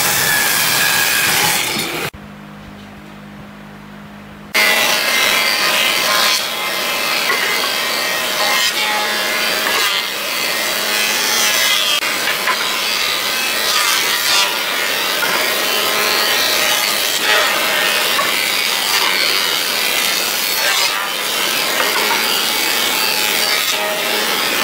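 A thickness planer planing a wooden board, a loud, steady noise of the cutter head shaving wood. About two seconds in, the noise drops to a quiet low hum for about two seconds before it starts again.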